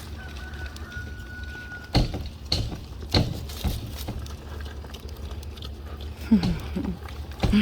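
Meishan piglets eating dry grain: scattered crunches and knocks from feeding over a steady low rumble, with a few short low grunts near the end.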